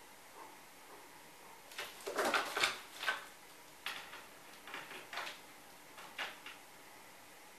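Peregrine × saker hybrid falcon scuffling about on a dresser top by a mirror: a bout of scrapes and knocks about two seconds in, then a few scattered single taps.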